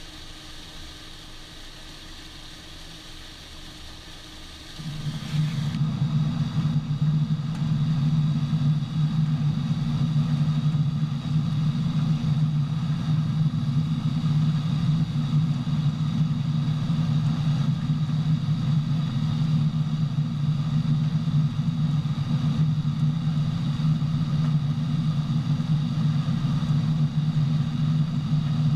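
Large farm machine's engine running steadily: a loud, even low drone that cuts in abruptly about five seconds in, after a quieter hiss.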